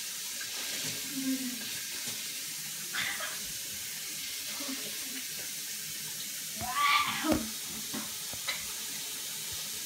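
Kitchen sink tap running steadily while a person drinks straight from it, with short voice sounds about three and seven seconds in.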